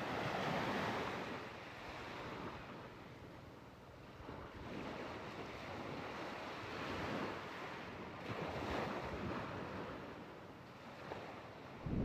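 Small sea waves washing onto the shore: a soft hiss that swells and eases every few seconds.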